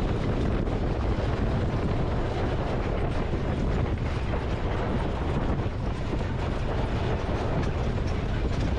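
A mule-drawn covered wagon rolling along a dirt road: a steady rumble and rattle of the wheels and wagon body, with faint scattered clicks.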